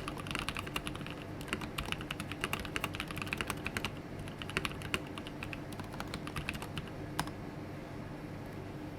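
Typing on The Mark: 65 custom mechanical keyboard, with lubed NovelKeys Cream linear switches in an aluminium plate: a quick run of keystrokes that thins out and stops about seven seconds in.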